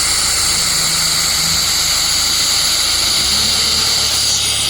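Laser welding machine welding at the nozzle: a loud, steady hissing rush, likely the compressed air or nitrogen that blows through the welding head, with a low machine hum beneath.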